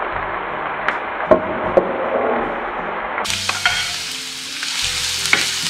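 Chopped onion sizzling as it fries in hot oil in a frying pan, while it is stirred, with a few sharp taps against the pan.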